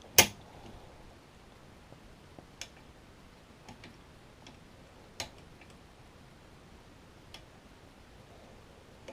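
Sparse, sharp metallic clicks from a lever lock pick working the levers and bolt of a Union Strongbolt lever mortice deadlock. One loud click comes just at the start, then several fainter ones a second or two apart.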